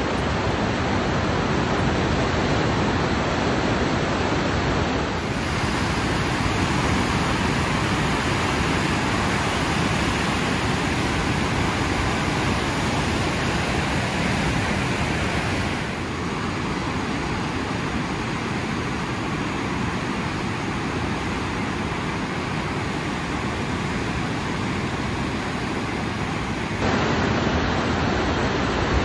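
Niagara River whitewater rapids rushing: a steady, dense wash of water noise. It shifts slightly in tone and loudness at cuts between takes, about five, sixteen and twenty-seven seconds in.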